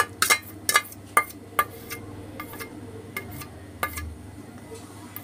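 A metal spoon clinking and tapping against steel vessels as thick strained curd (dahi) is scraped out into a steel bowl: about a dozen sharp, irregular clinks.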